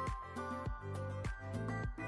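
Background music with a steady beat, a little under two beats a second, over held tones.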